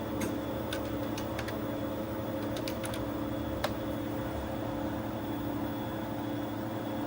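TRS-80 Model II computer running: a steady machine hum with a few fixed tones, broken by a handful of light clicks.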